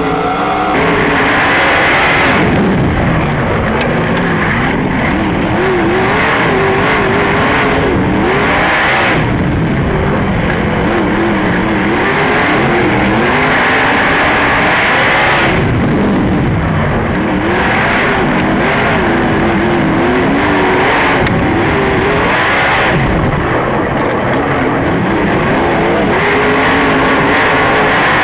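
Sprint car engine at racing speed, heard on board at close range. Its pitch rises and falls continuously with the throttle, and surges of louder noise come every few seconds.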